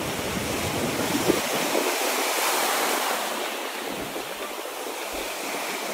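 Ocean surf breaking and washing up over the sand, the wash swelling about two seconds in and then easing. Wind buffets the microphone, mostly in the first second or so.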